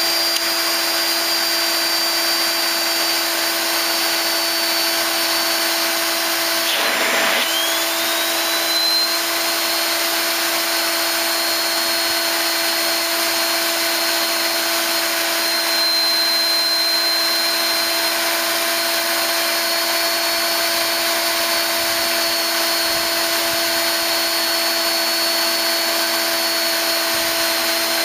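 Air blower forcing air through a hose into the compressor of a homemade turbojet built from a Garrett GT2052 turbocharger, spinning the turbo up for a start: a steady motor hum with a high, even whine from the spinning turbo. About seven seconds in, the whine drops sharply and then climbs back to speed.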